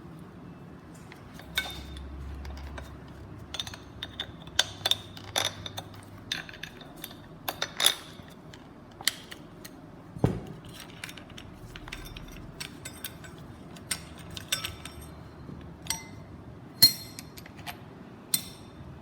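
Irregular clicks and light metallic clinks of small tool parts and hand tools being handled while an angle grinder is taken apart for motor maintenance, some with a brief ring, the sharpest near the end.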